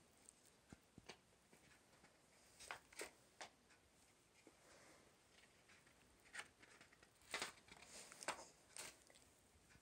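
Faint paper handling: pages of a large book and printed inserts being turned and shifted, giving about eight brief rustles scattered through an otherwise near-silent room.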